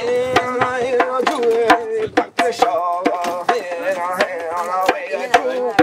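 Djembe struck with bare hands, a run of sharp slaps and tones, under a voice singing long, drawn-out notes without clear words.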